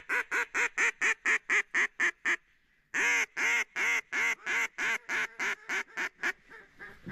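Mallard duck call blown hard and close in a long string of quick quacks, about five a second. After a short break a second, louder string starts and tapers off, like a hen's hail call, meant to pull passing ducks in.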